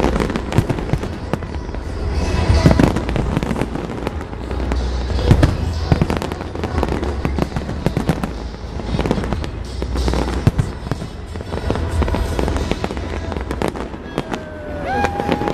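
Large fireworks display: a dense, continuous run of bangs and crackles from bursting shells over a steady low rumble.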